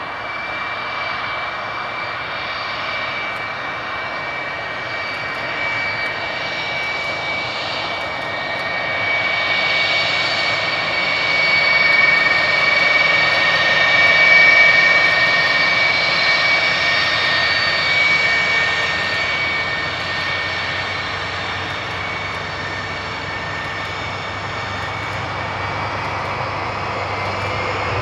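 Twin jet engines of a Sukhoi Su-57 fighter taxiing: a steady high whine with two piercing tones over a rush of exhaust noise. It grows louder to a peak about halfway through, then eases, and the pitch starts to rise right at the end.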